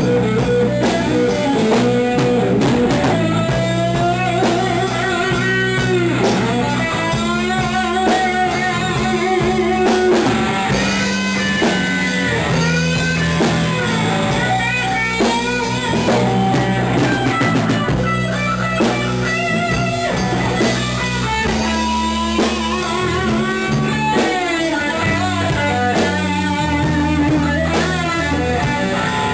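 Blues-rock band playing: a lead electric guitar with bent, wavering notes over bass guitar and a drum kit.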